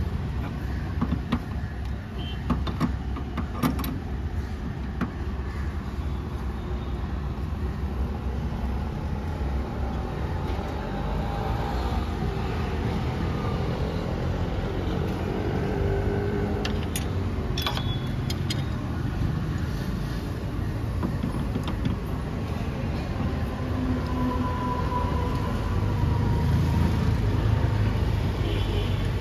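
Steady low mechanical drone with a few sharp metallic clicks of a wrench on the outdoor unit's brass service valves, a cluster near the start and another about halfway through.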